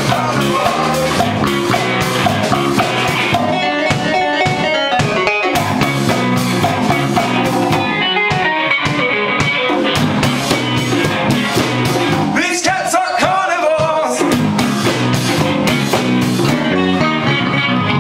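Funk band playing live: drum kit, electric guitars, congas and keyboards locked into a steady groove.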